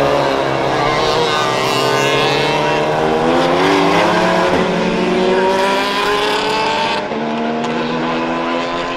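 Several racing cars driving past one after another, their engines accelerating with the pitch climbing steadily. The sound changes abruptly about seven seconds in.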